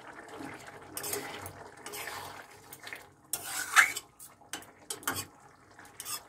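Metal spatula scraping and stirring vegetable curry in an aluminium kadai, with a loud metal-on-metal clank a little past the middle and a few lighter clinks after.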